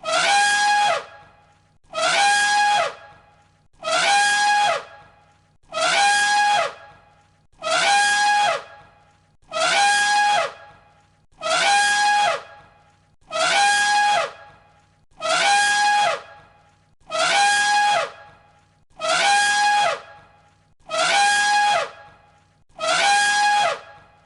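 An elephant trumpeting: the same one-second blast repeated about every two seconds as a loop, each call a loud, brassy note that drops slightly in pitch at its end.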